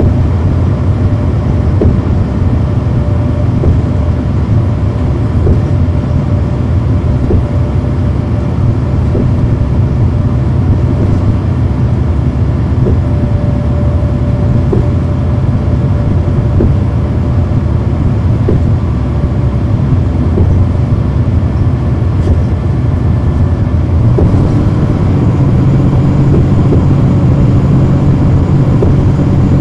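Cummins ISL9 inline-six diesel of a NABI 40-SFW transit bus, heard from on board while the bus drives, with a steady whine and occasional light knocks over the engine drone. About three-quarters of the way through the engine note rises and grows louder as the bus accelerates.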